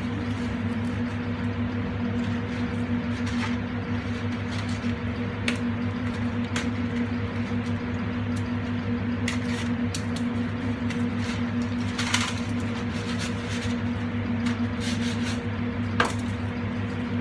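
Steady hum of kitchen equipment, with scattered light clicks and knocks from dry spaghetti, packaging and pans being handled at the stove; the sharpest knock comes about a second before the end.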